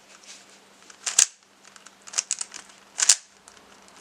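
Plastic 3x3 Rubik's cube layers being turned by hand, giving sharp clicks: three louder ones about a second apart with fainter clicks between them.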